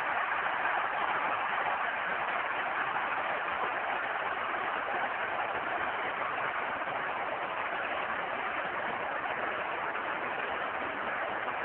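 Steady noise of a large stadium crowd, an even wash of sound without clear rises or single shouts.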